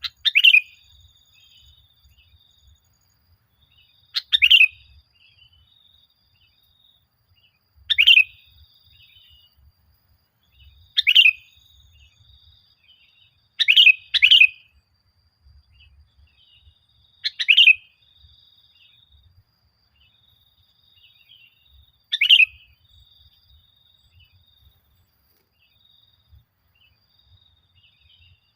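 Sooty-headed bulbul (kutilang) song: short, loud phrases repeated every three to five seconds, about eight in all, two of them back to back near the middle, with faint chirping in between.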